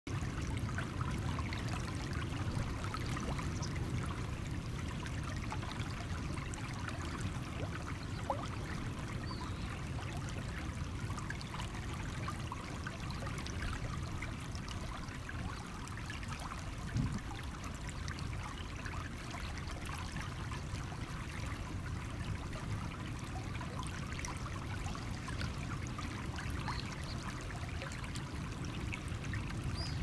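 Shallow stream water trickling and flowing steadily over stones, with a single soft knock about halfway through.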